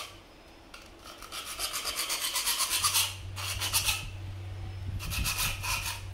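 Hacksaw cutting through PVC pipe with quick back-and-forth strokes, in three runs with short pauses between.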